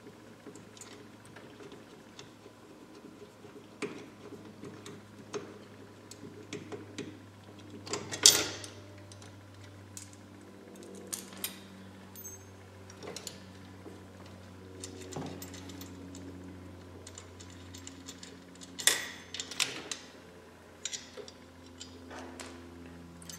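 Steel winch fairlead and mounting-plate hardware being handled and fitted: scattered light metallic clicks and knocks, with a louder clank about eight seconds in and another about nineteen seconds in.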